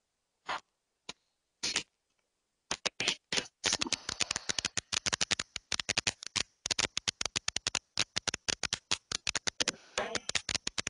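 A few isolated clicks, then from about three seconds in a quick, irregular run of sharp clicks and taps, several a second.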